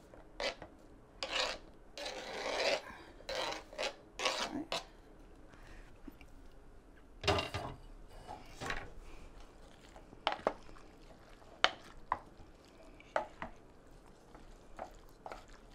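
A knife scraping cubed zucchini and squash off a plastic cutting board, the pieces clattering into a slow cooker in a run of rasping strokes, with one louder clatter about seven seconds in. After that come scattered sharp knocks as a wooden spoon starts stirring the vegetables in the pot.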